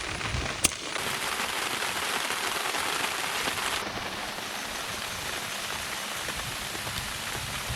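Steady rain falling, a dense even patter, with a single sharp click about half a second in.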